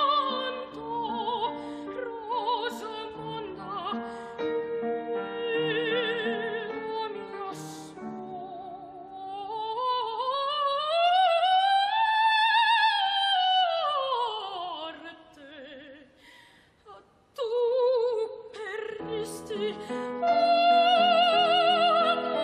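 Operatic mezzo-soprano voice singing with wide vibrato over instrumental accompaniment. About halfway through she sweeps up to a long high held note and back down. The music then drops nearly away for a moment before the singing resumes.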